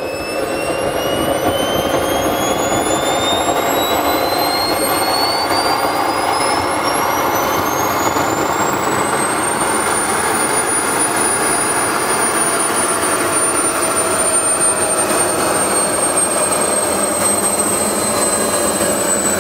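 JetsMunt M166 model jet turbines of an RC Airbus A380 running, with a steady rushing noise. Over it a high whine climbs steadily in pitch for about ten seconds, then levels off and eases down slightly: a turbine spooling up after start and settling.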